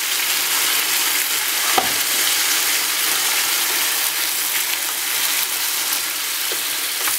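Chopped lamb liver, garlic and walnuts sizzling steadily in hot olive oil in a frying pan while being stirred, just deglazed with a shot of ouzo. A single knock sounds about two seconds in.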